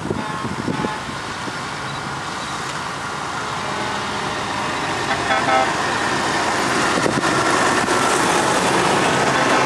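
Convoy of heavy trucks driving past, their diesel engines and tyres growing steadily louder as a cab-over prime mover and tipper trucks approach.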